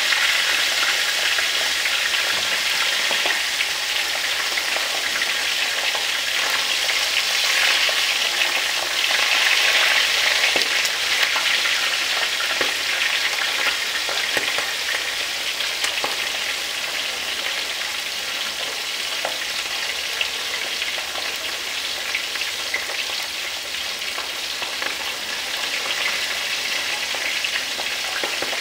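Whole basasong fish deep-frying in bubbling oil in a round electric frying pan: a steady sizzle with scattered small pops, loudest about a third of the way in and a little quieter in the second half.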